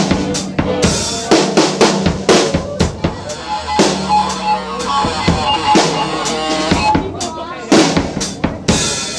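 Live rock band playing an instrumental passage. The drum kit leads with bass drum, snare hits and cymbals, and held melodic notes run over it.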